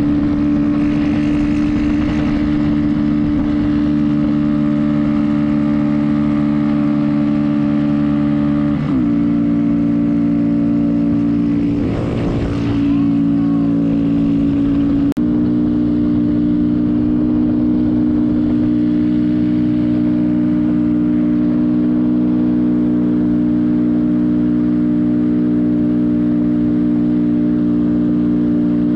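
125 cc mini bike's single-cylinder engine running at a steady cruising speed, heard from the rider's own bike, with its pitch easing slightly about nine seconds in. Around twelve seconds in, another mini bike draws alongside and its engine swells briefly.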